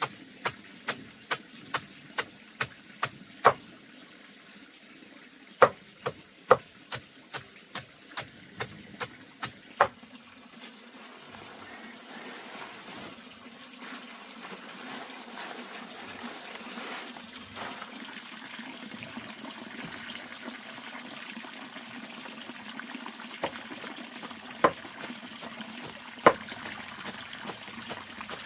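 Repeated chopping strokes, about two a second, for the first ten seconds. Then a steady rush of running or pouring water builds up, with a few more single chops near the end.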